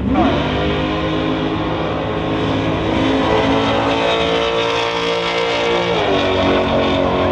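Fourth-generation Pontiac Firebird's V8 launching hard down a drag strip at full throttle. Its note climbs steadily from the start, drops about six seconds in, then climbs again.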